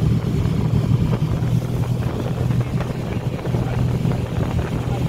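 Speedboat under way, its engine running with a steady low drone, with wind buffeting the microphone.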